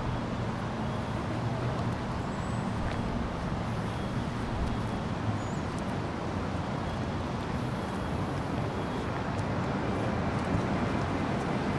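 Steady city street traffic noise: vehicles passing and running, with a low engine hum under an even wash of road noise.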